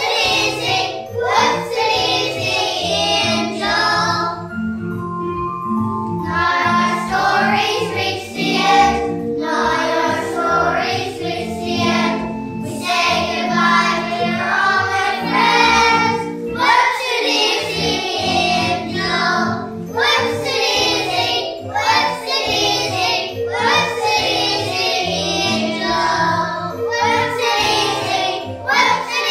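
A group of young children singing a song together in unison over instrumental accompaniment with a steady bass line. The voices drop out for a short instrumental bar about four seconds in, then carry on.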